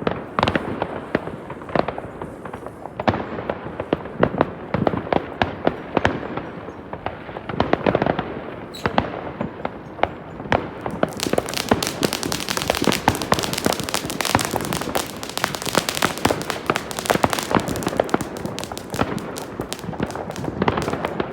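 Fireworks going off close by and all around: a steady run of sharp bangs and pops that thickens about halfway through into rapid, dense crackling.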